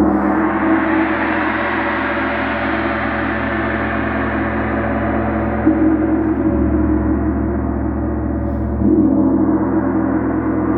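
A gong tapped softly and kept ringing: a dense, sustained wash of many overlapping tones that swells again about nine seconds in.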